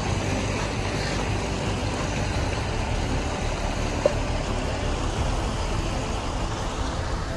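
Steady rushing of a small mountain creek running over rocks, with a heavy low rumble underneath and one short click about four seconds in.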